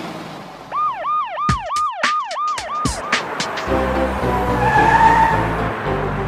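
Cartoon police-siren sound effect: a quick run of about seven short up-and-down whoops, roughly three a second, with clicks, lasting about two seconds. About three and a half seconds in, a song's backing music starts with steady notes.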